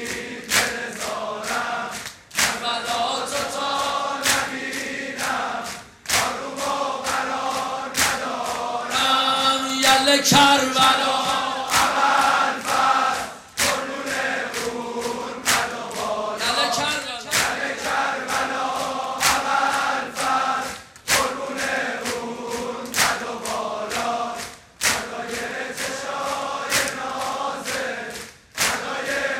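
A large crowd of men chanting a Shia mourning refrain (noheh) in unison, led by a singer, over a steady beat of hands slapping bare chests (sineh-zani).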